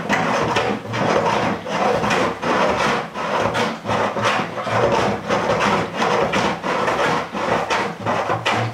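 Homemade plunger washing machine in use: a plunger pumped up and down through the lid of a sealed 30-liter bucket, agitating soapy water and clothes. It makes rhythmic rubbing strokes, about two a second.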